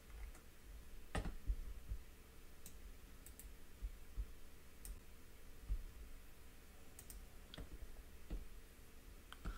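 Faint, irregular clicks from hands working a computer's controls, about a dozen spread across several seconds, over a low steady hum.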